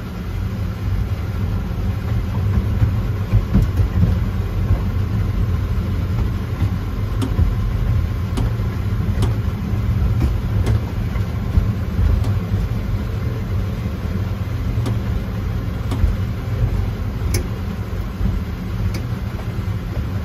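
Miniature ride-on train running along its track, heard from inside its small cab: a steady low rumble with a sharp click about every second and a half.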